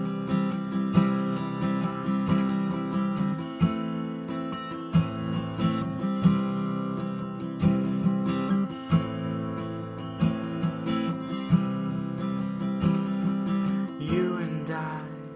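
Acoustic guitar strummed in a steady rhythm, chords ringing on between the strokes, with a heavier strum about every second and a quarter.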